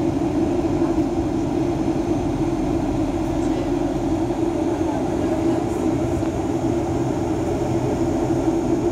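Steady cabin drone of a Boeing 737-800 on final approach, the noise of its CFM56-7B turbofans and the airflow heard from inside the cabin, with a strong low hum.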